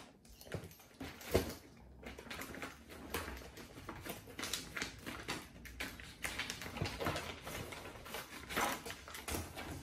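A plastic zip-lock bag being opened and handled, its plastic crinkling, while paper sheets rustle as they are pulled out of it: an irregular run of crackles and rustles.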